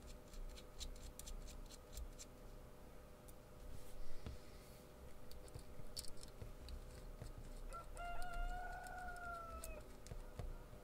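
Small sharp metallic clicks and ticks of nuts being turned by hand onto the potentiometer bushings of a synth module's front panel. About eight seconds in, a rooster crows once: a single drawn-out crow that dips slightly at the end.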